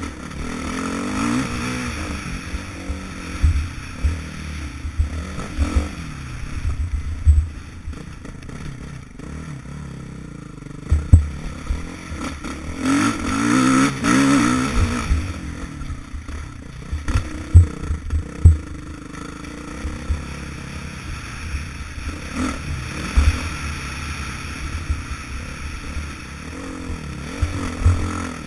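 Dirt bike engine revving up and falling back again and again while riding hard, heard through a helmet camera with low wind rumble on the microphone. Sharp thumps break in several times.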